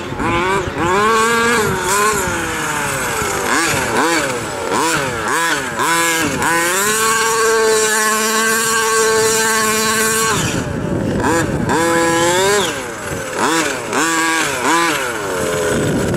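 Losi 5ive-T 1/5-scale RC truck's two-stroke gasoline engine revving up and down in quick repeated throttle blips, held at a steady high pitch for about three seconds near the middle before dropping back.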